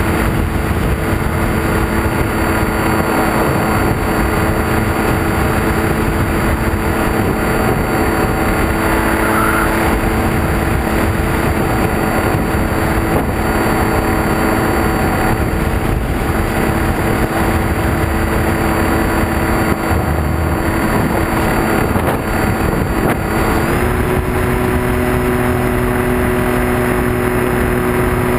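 Electric motor and propeller of a HobbyKing EPP-FPV foam model plane running steadily in flight, heard from an onboard camera under heavy wind rush. Late on, the motor's whine steps up in pitch.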